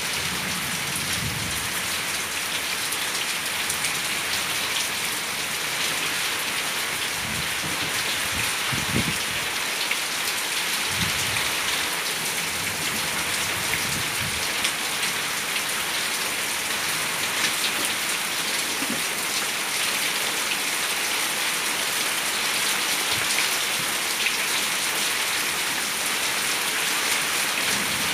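Steady rain falling on a paved yard path and leafy plants, an even hiss of many drops.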